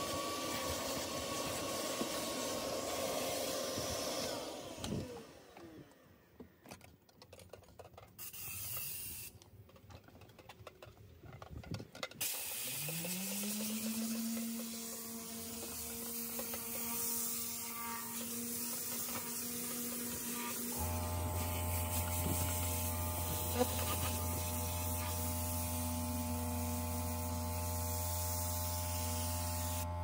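Car-detailing hot-water extractor machine: a motor runs, then is switched off and winds down about five seconds in. After a quieter stretch with light clicks, a motor starts with a rising whine and settles to a steady pitch. About twenty seconds in, a low steady electric hum joins it.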